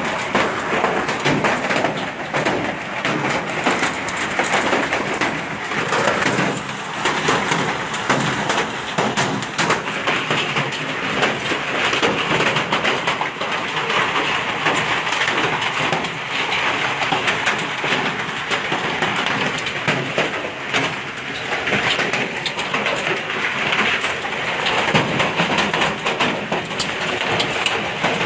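Hail falling heavily: a dense, unbroken clatter of countless small impacts, steady in loudness throughout.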